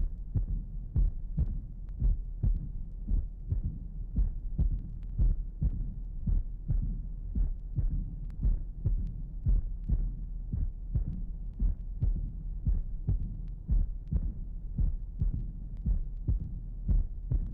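Heart sounds of mitral insufficiency (mitral regurgitation), recorded at the apex of the heart. A systolic murmur takes the place of the first heart sound and is followed by the second heart sound, repeating about once a second.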